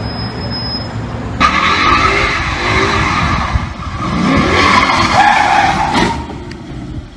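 Car tyres squealing as a car drifts on pavement, its engine revving up and down. It follows a brief stretch of street traffic noise and dies away about six seconds in.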